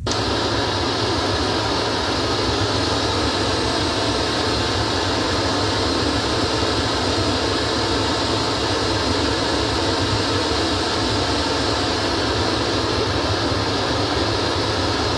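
Steady hiss-like test noise, with deep bass under it, played through a Carvin TRx3903 column array speaker and its TRx3018A powered subwoofer as a level-measurement signal. It switches on abruptly and cuts off abruptly near the end.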